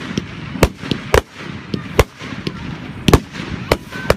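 Fireworks display: aerial shells bursting overhead in a rapid, uneven series of sharp bangs, about ten in four seconds, the loudest about three seconds in.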